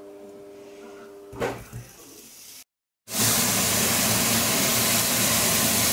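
Diced beef and asparagus sizzling in a hot frying pan: a loud, even hiss that starts about three seconds in, after a moment of silence. Before it comes a quieter low hum of a few steady tones, with a short clatter at about a second and a half.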